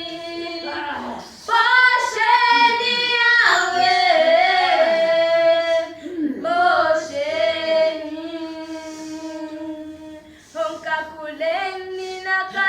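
A high-pitched voice singing long held notes that slide up and down between pitches, broken by a few short pauses.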